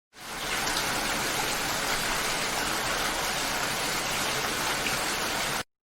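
Steady heavy rain: a dense, even hiss that fades in quickly at the start and cuts off abruptly near the end.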